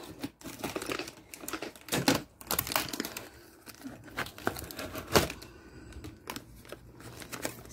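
Clear plastic wrap and packing tape on a cardboard box crinkling as the box is handled, with irregular crackles and a few sharper snaps, the loudest about five seconds in.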